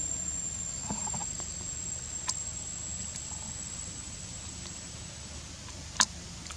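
A single insect's steady, high-pitched drone that fades out near the end, over a faint low hum, with a small click about two seconds in and a sharp, loud click about six seconds in.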